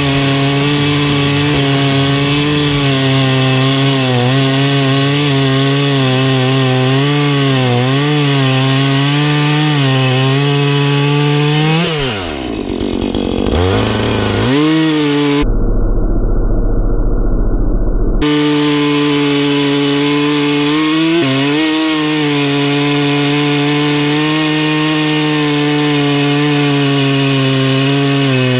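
Husqvarna two-stroke chainsaw running at high revs while bucking a fallen pine log, its pitch wavering as the chain loads in the cut. About twelve seconds in the revs drop sharply and climb back as the bar is lifted out of the cut. For a few seconds after that the sound turns dull and muffled, then the saw runs on at steady high revs.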